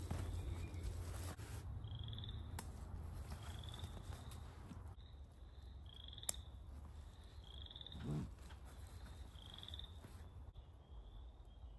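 An animal calling with short rising chirps, repeated every second or so, over a steady low rumble. A single low thump comes about eight seconds in.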